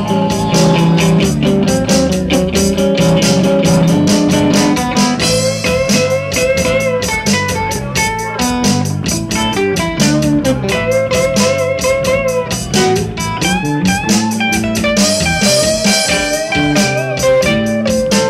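Live rock band playing an instrumental passage. An electric guitar plays a lead of held notes that bend and waver in pitch, over bass guitar and a steady drum beat with cymbals.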